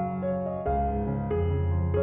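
Background music: soft piano or electric-piano chords changing about every half second over a sustained bass.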